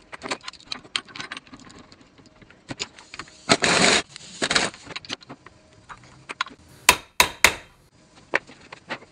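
Steel hand tools and a gear puller clinking and clattering against a universal joint held in a bench vise, with a short rattling burst about three and a half seconds in. About seven seconds in come three sharp metallic strikes, hammer blows on the joint. The joint is being taken apart again because its cap and snap ring would not seat right.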